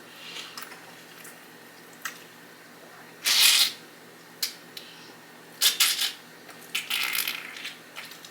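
Close-miked eating-show handling and eating noises: several short, crisp bursts, the loudest about three seconds in and two more near the end, with a few sharp clicks between.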